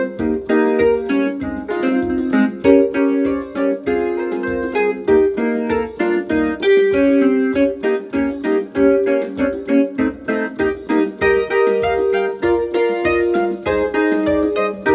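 Electronic keyboard played in a piano voice: busy chords and quick fills in a highlife praise style, over a steady low beat.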